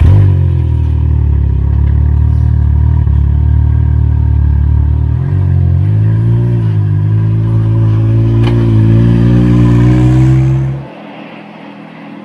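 Can-Am Maverick X3's turbocharged three-cylinder engine idling through an Evolution Powersports full exhaust, close up and steady, with a small throttle blip around the middle. The engine sound cuts off suddenly near the end.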